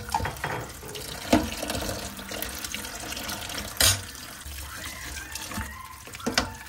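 Tap water pouring into an aluminium pot of dried chiles in a sink, filling it to soak them. A metal spoon knocks against the pot a few times.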